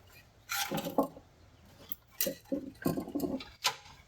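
Small tools and parts being handled and set down: a scatter of light clinks and knocks, in a few quick clusters.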